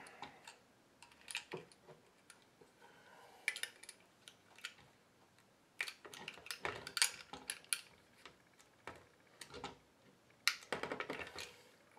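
Screwdriver tips prying and scraping at the plastic flywheels on a Nerf Ultra 2's flywheel motors: scattered sharp plastic clicks and short scrapes in small clusters, the loudest about seven seconds in and again near ten and a half seconds.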